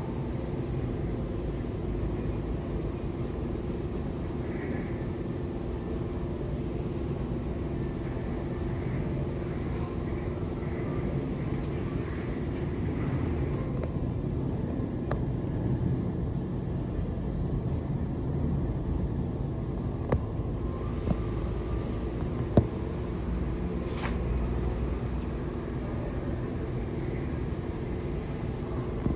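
A steady low mechanical rumble, like a running engine, with a few sharp clicks about twenty seconds in.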